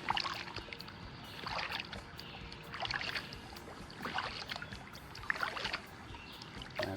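Kayak paddle strokes in the water, a short swishing splash about every 1.3 seconds, five in all, with the kayak moving along quickly.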